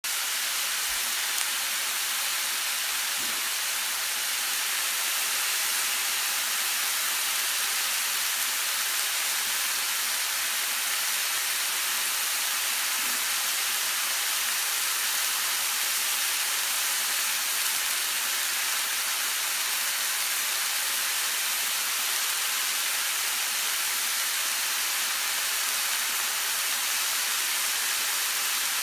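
Chunks of beef and sliced onion sizzling in a hot frying pan: a steady, even hiss.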